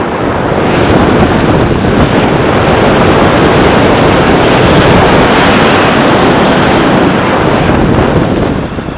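Steady, loud wind rush buffeting the camera's microphone as the paraglider flies through the air.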